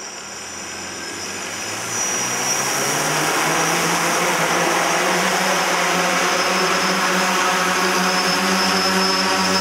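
The three electric motors and propellers of a radio-controlled tricopter spinning up, rising in pitch and loudness over the first two seconds, then holding a steady whine as the craft lifts off and hovers.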